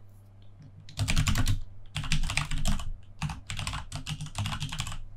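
Typing on a computer keyboard: rapid keystrokes in several quick bursts, starting about a second in, as a terminal command is typed out.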